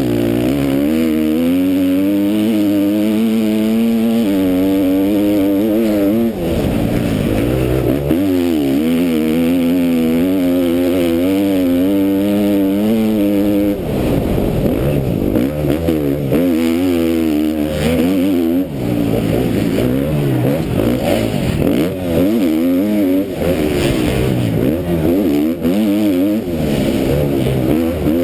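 KTM MX2 motocross bike's engine racing, heard close up from the rider's helmet: revving hard and shifting, its pitch climbing and dropping as the throttle opens and closes, with brief dips a few times.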